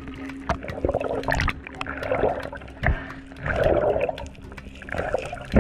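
Underwater sound through a dive camera's housing: swells of swirling water, with many short sharp clicks scattered throughout.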